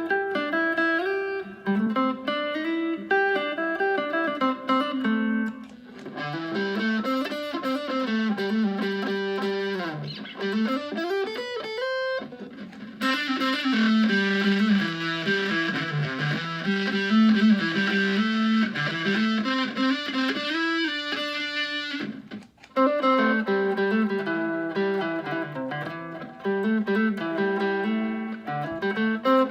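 Fender Stratocaster electric guitar playing a melodic line through effects, with pitch slides. The sound turns fuller and brighter in the middle, with brief breaks about 12 and 22 seconds in.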